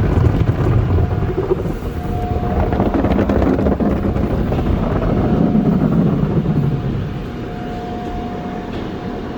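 PECO express car wash tunnel equipment running around the car, heard from inside the cabin: a loud, steady rushing rumble with a faint whine that comes and goes, easing a little about seven seconds in.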